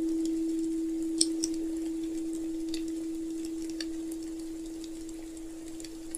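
A steady pure tone, the solar plexus chakra healing frequency, held and slowly fading. Sparse crackles of a fire tick over it, the sharpest about a second in.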